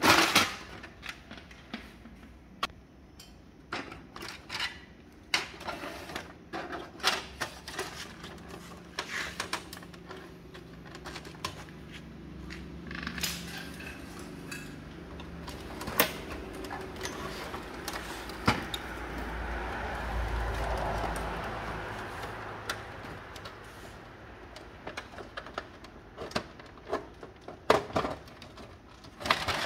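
Irregular plastic clicks, knocks and rattles of a Brother HL-L2321D laser printer's casing and covers being handled and pried apart. About two-thirds of the way in, a low rumbling swell of noise rises and fades over a few seconds.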